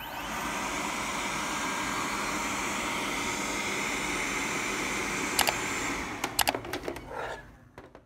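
Probot robot vacuum cleaner running, its suction motor making a steady whir with a high whine. Near the end a few sharp knocks come as the robot is handled, then the motor winds down and stops.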